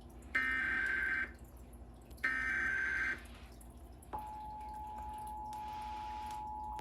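Emergency Alert System SAME header: the last two short bursts of harsh digital data tones, each about a second long with about a second between them. About four seconds in, the steady EAS attention tone begins and holds.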